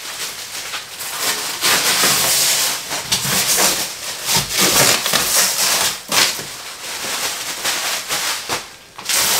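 Clear plastic wrap and bagging crinkling and rustling as it is pulled off the printer and bunched up by hand.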